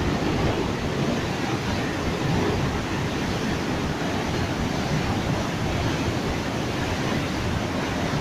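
Water rushing through the open spillway gate of a hydroelectric dam's bypass, a steady, heavy, deep rush of churning white water.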